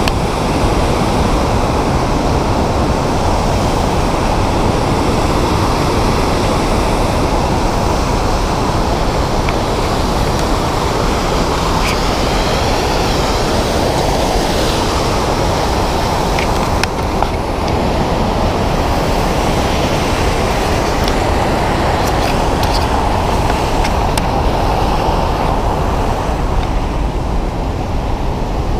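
Loud, steady rush of falling and churning whitewater from a waterfall, a dense unbroken roar with no pauses.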